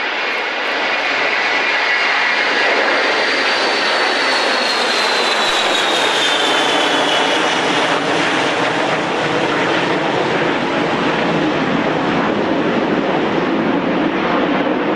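Boeing E-3 Sentry AWACS's four TF33 turbofan engines at takeoff power as it climbs past: a loud jet roar with a high whine that falls in pitch about four to seven seconds in as the aircraft goes by, leaving a lower rumble as it moves away.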